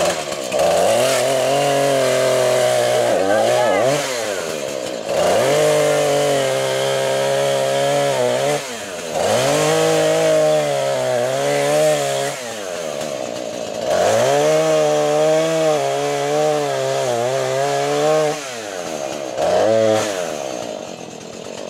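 Two-stroke chainsaw revved up repeatedly: about four long bursts at high revs, each a few seconds long and dropping back to a lower idle between them, then a short rev near the end.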